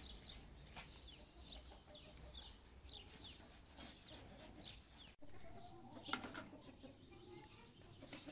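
Small birds chirping faintly in the background, repeated short downward chirps, with a single sharp click about six seconds in.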